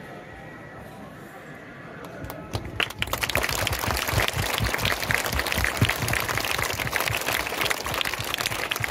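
A crowd clapping. It starts about two and a half seconds in, after a quieter stretch of murmur, and keeps up as a dense, loud applause.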